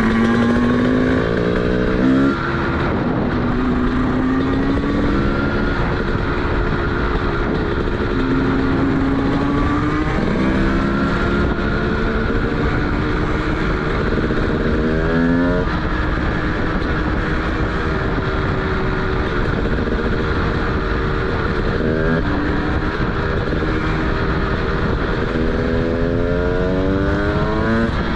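TM SMR 300 two-stroke single-cylinder supermoto engine with a DBR exhaust, ridden under load. The revs climb repeatedly and drop abruptly a few times, as at upshifts.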